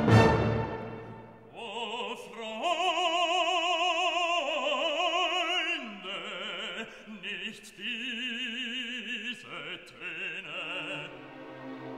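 Background music: a loud chord dies away in the first second, then an operatic voice sings long held notes with wide vibrato until near the end, when softer accompaniment carries on.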